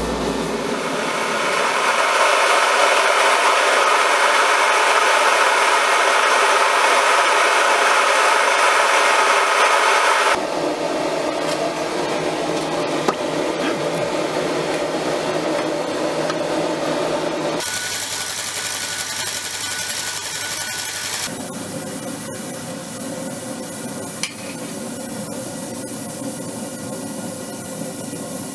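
Steady abrasive working of the sword's metal blade with shop tools, in several stretches whose tone changes abruptly about ten, seventeen and twenty-one seconds in, with a couple of brief clicks.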